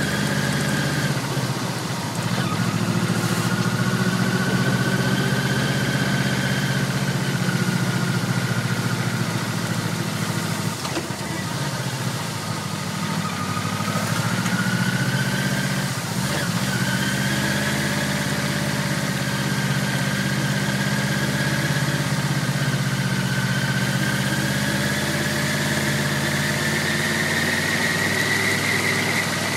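Yamaha VMAX1200's V4 engine running steadily at low speed as the motorcycle rolls slowly along, with a higher whine that drifts up and down and climbs near the end.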